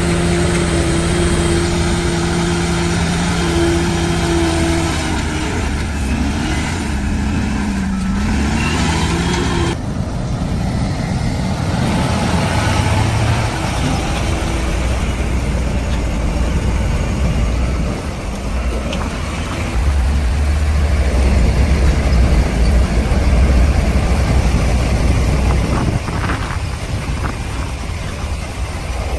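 Heavy diesel construction machinery running. A steady engine drone dips in pitch and recovers about eight seconds in, then changes abruptly to a rougher, lower engine sound.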